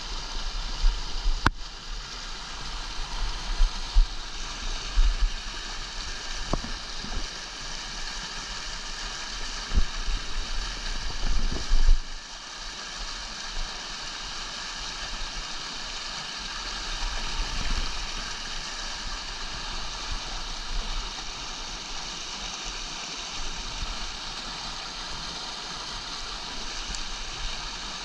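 Fast mountain creek rushing over boulders and small plunges, a steady water noise. Low bumps and thumps on the microphone come and go during the first twelve seconds, with a sharp click about a second and a half in.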